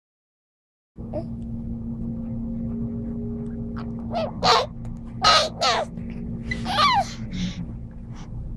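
Infant squealing and cooing in a few short, high calls, some falling in pitch, over a steady background hum that starts abruptly about a second in.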